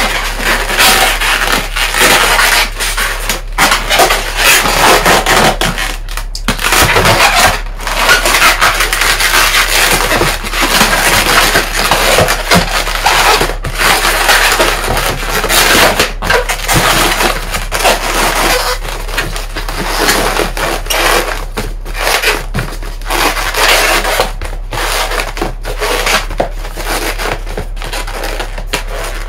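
Inflated latex modelling balloons squeaking and rubbing against each other as they are twisted and pressed together, a loud, dense crackle broken by brief pauses.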